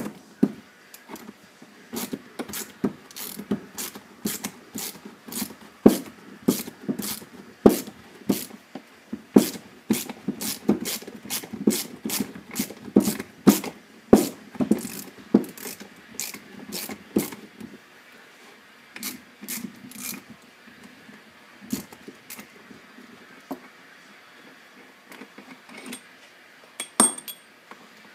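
Metal hand-tool clicks and knocks on a brake caliper being worked apart, coming two or three a second and thinning out about two-thirds of the way through.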